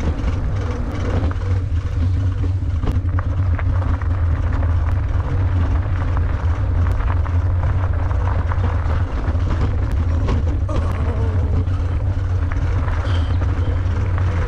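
Steady low wind rumble on the microphone of a moving electric bike, with light ticks and crunches from the tyres rolling over the trail.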